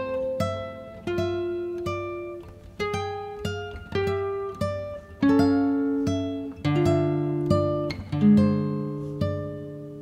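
Acoustic guitar music: single plucked notes and chords ringing out and fading, a new note about every half second.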